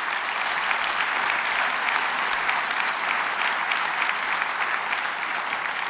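Large audience applauding: steady, dense clapping that eases slightly near the end.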